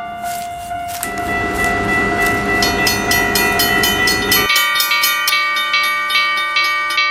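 Animated train sounds: several held horn-like tones over the rush of a passing train, joined midway by a quick, evenly spaced run of ringing strikes. The tones change pitch about four and a half seconds in, and the sound cuts off abruptly near the end.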